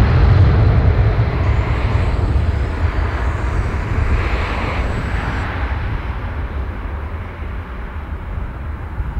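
An Avro RJ85's four Lycoming LF507 turbofans at take-off power as the jet rolls away down the runway and lifts off: loud engine noise with a deep rumble that fades steadily as it moves away. A faint high whine sits over it for a few seconds in the first half.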